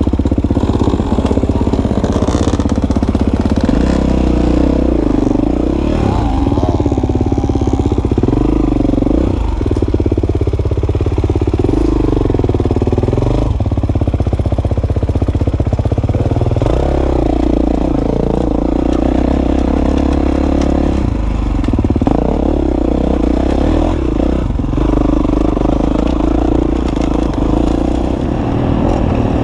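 Dirt bike engine heard up close from the rider's own bike, running at low speed with the revs rising and falling again and again as the throttle is worked.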